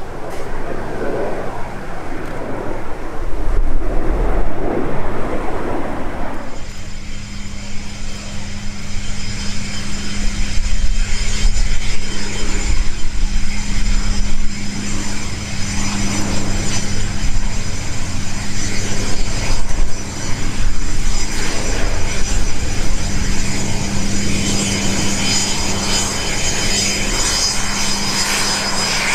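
Fairchild Dornier Alpha Jet's twin Larzac turbofans: a broad rumble as the jet flies overhead. About six seconds in it switches abruptly to a steady low hum with a thin high-pitched whine as the jet taxis on the runway at low power, the whine growing near the end.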